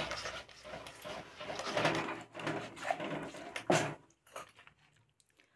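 Silicone spatula stirring and scraping a thickening milk-and-sugar mixture around a nonstick pan: soft, irregular swishing and scraping with an occasional click. It stops about four seconds in.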